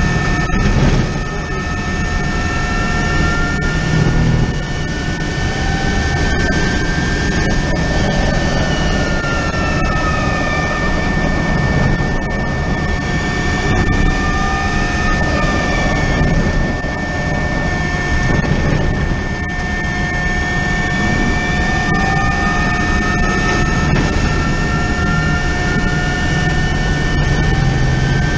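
Hydrogen fuel-cell electric race car at speed, heard from onboard: the electric drivetrain whines, its pitch gliding up and down with speed over heavy wind and road noise. A steady high tone runs underneath.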